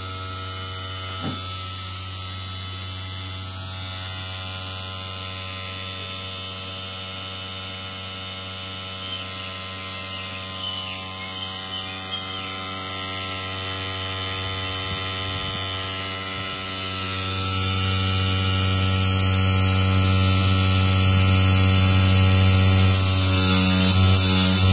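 Steady electrical hum with a stack of overtones, growing louder about 17 seconds in.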